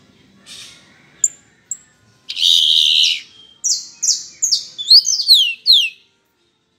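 Yellow-hooded blackbird singing: two short high notes, then a loud harsh buzzy note about two seconds in, followed by a quick run of about eight falling whistled notes that ends about six seconds in.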